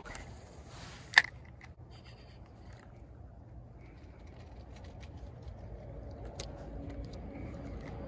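Fabric rustling against the microphone, a sharp click about a second in, then a few faint clicks from handling a casting rod and reel over a low steady rumble.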